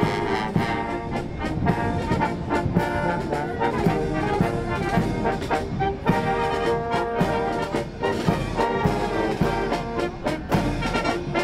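Marching brass band playing a march: trombones, tubas, trumpets and clarinets carry the tune over a steady snare drum beat.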